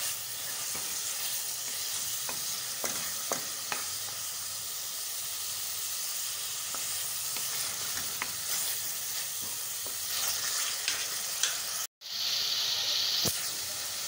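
Boneless chicken pieces sizzling as they fry in hot oil in a metal pan, stirred with a wooden spoon that clicks and scrapes against the pan now and then. The sound drops out for an instant near the end and picks up again.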